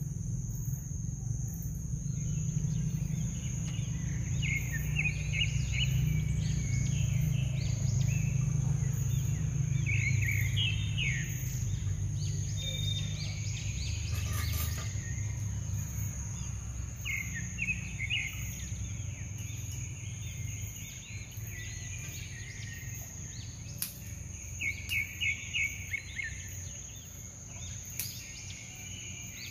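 Birds chirping in short clusters of quick calls every few seconds, with a rapid run of calls near the end, over a steady low rumble of outdoor background noise and a faint steady high whine.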